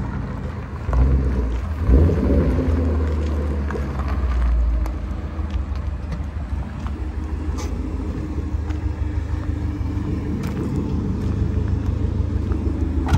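Mustang Roush Stage 1's engine running as the car moves slowly, louder under throttle for a few seconds about a second in, then settling to a steady idle.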